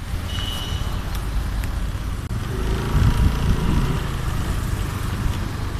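A motorbike riding along: a low, steady rumble with the wind buffeting the microphone, growing somewhat louder about halfway through.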